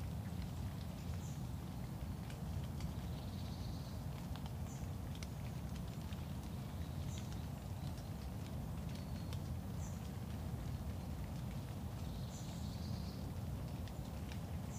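Outdoor morning ambience: birds giving short, high chirps every couple of seconds, with two brief warbling phrases, over a low steady rumble and faint scattered ticks.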